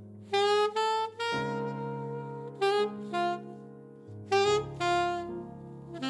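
Alto saxophone and piano playing a slow jazz ballad: the saxophone plays the melody in short phrases of a few notes, over sustained piano chords that change twice.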